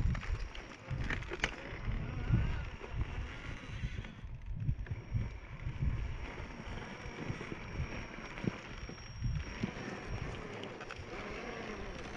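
RC rock crawler driving slowly over loose dirt and rocks: its small electric motor and gears running with tyres crunching and scrabbling, and wind buffeting the microphone in uneven low gusts.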